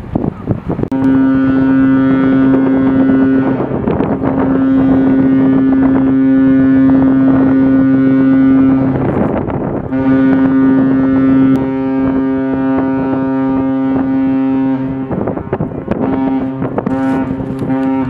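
Large cruise ship's horn sounding long blasts at one steady pitch: the first lasts about eight seconds, a second follows after a short break and lasts about five, and a third starts near the end. Wind buffets the microphone throughout.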